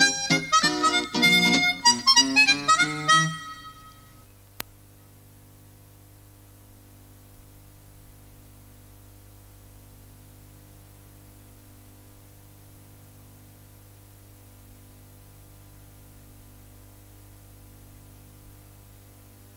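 Closing music, a tune in quick short notes that ends about three and a half seconds in. A single click follows, then a low steady hum.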